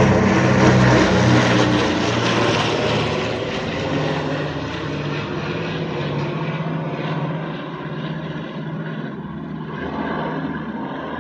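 Four radial engines of a B-24 Liberator bomber droning as it passes overhead and flies away. The sound is loudest at first, then fades and grows duller as the plane recedes.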